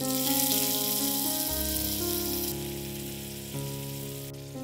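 Sauce sizzling in a small iron kadai just after vinegar is poured in. The sizzle is strong for about two and a half seconds, then drops off sharply and keeps fading.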